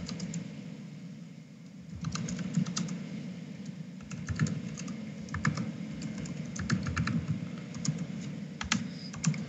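Typing on a computer keyboard: short runs of quick keystrokes with pauses between them.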